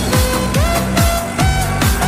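Electronic dance music with a steady kick drum about twice a second and a gliding synth melody.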